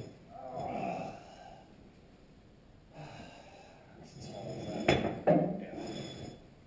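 A man grunting, muttering and breathing hard while straining at a heavy jacking job, with two sharp knocks about five seconds in.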